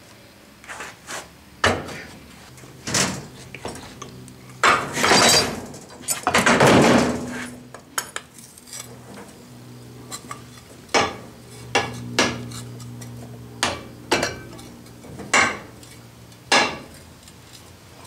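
Metal clanks and knocks from a molding flask being knocked apart and a fresh casting shaken out of the molding sand. About ten sharp clanks are spread through, with a longer rattling scrape about five to seven seconds in.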